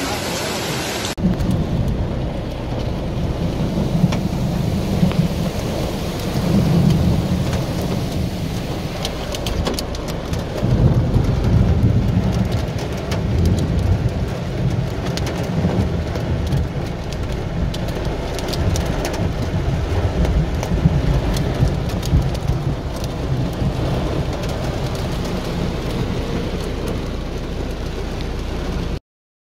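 Heavy rain pelting a car's windshield and roof, heard from inside the car, with a low rumble that swells and fades twice. It is preceded by about a second of floodwater surging around a van driving through a flooded street.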